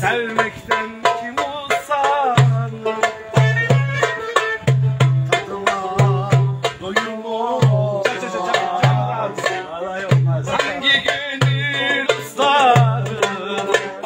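Live Turkish wedding-band music: a wavering, ornamented melody played over a steady beat of low drum strokes.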